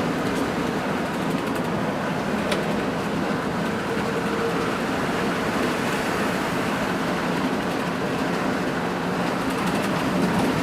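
Steady engine and road noise of a Hino RN285 coach underway, heard from inside the cabin: an even low hum with a faint click about two and a half seconds in.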